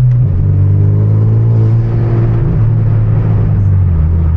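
Hyundai Genesis Coupe's turbocharged four-cylinder running under throttle through a loud aftermarket exhaust, a deep steady drone with the pitch easing near the end. Heard with the windows down, the exhaust echoes off the buildings on either side, which gives it a tunnel sound.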